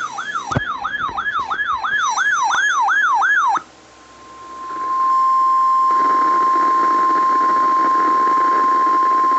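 A warbling, siren-like alert tone sweeps up and down about three times a second for roughly three and a half seconds. After a short lull a single steady tone near 1 kHz begins over radio static: the NOAA Weather Radio 1050 Hz warning alarm tone that heralds an alert.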